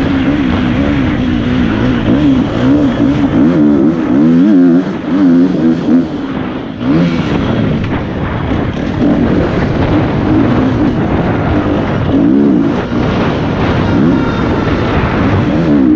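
KTM 450 SX-F motocross bike's single-cylinder four-stroke engine at race pace on a dirt track, its revs rising and falling quickly as the rider works the throttle through the gears. The engine note drops away for a moment about six seconds in, then picks up again.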